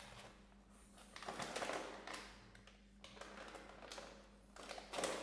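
Foil-lined plastic snack bag being pulled open and crinkled: two bouts of faint crinkling rustle, one starting about a second in and another near the end.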